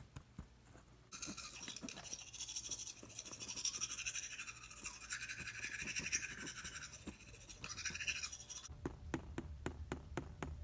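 A brush drawn quickly through a doll's long synthetic hair, making a continuous scratchy rustle for about seven seconds. It stops suddenly and is followed by a few light clicks of plastic toys being handled.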